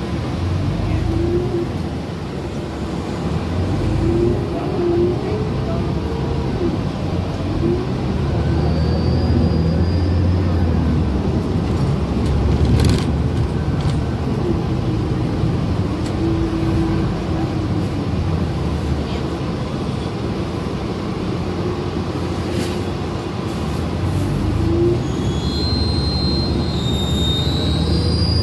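New York City transit bus in motion, heard from inside the cabin: steady engine and road rumble. A brief high squeal comes near the end.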